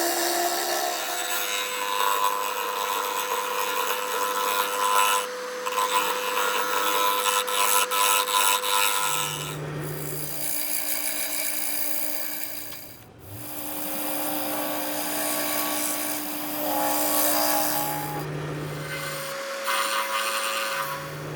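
A wood lathe spinning a bowl blank while a turning tool cuts into it, making a continuous rough scraping over the steady hum of the lathe motor. The hum changes pitch abruptly a few times, with a brief drop in level about thirteen seconds in.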